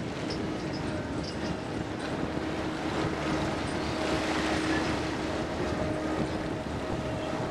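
Steady drone of a trawler's deck machinery with a held low hum, over rushing, splashing sea water as the trawl net and its footrope are hauled out of the sea. The water noise swells in the middle.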